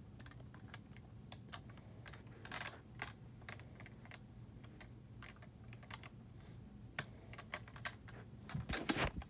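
Faint, irregular light clicks and taps, a few a second at times, over a low steady hum, with louder handling bumps and rustling near the end.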